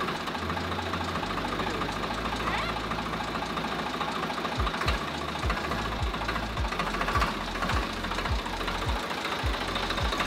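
Swaraj 735 FE tractor's three-cylinder diesel engine running at low revs just after being started. From about halfway in there is a regular low thump, two to three times a second.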